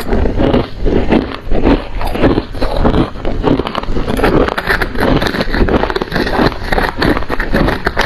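Freezer frost being chewed, close to the mouth, in a dense run of crisp crunches, together with a metal spoon scraping and digging through heaped frost.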